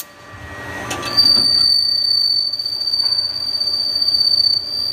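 High-pitched squeal from a button tool rough-turning aluminum on a Haas SL10 CNC lathe: one steady tone that breaks off at the start, and comes back about a second in just after a short click. The squeal comes from a feed rate set too slow for the cut; 0.02 IPR should have been used.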